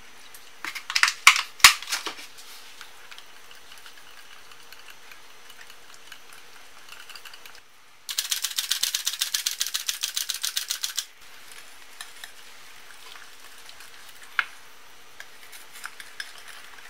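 Hand-crank flour sifter cranked over a bowl, clicking rapidly and evenly for about three seconds. A few light knocks come about a second in.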